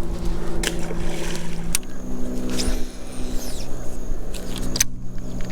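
A motor running steadily at a distance, an even droning hum that shifts in pitch about two seconds in, with a few sharp clicks over it.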